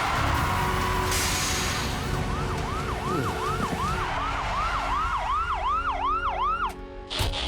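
Police-car siren on a cartoon car chase, sounding in quick rising-and-falling yelps about two and a half times a second, over a steady low rumble. It starts about two seconds in and stops shortly before the end, followed by a sudden short burst of noise.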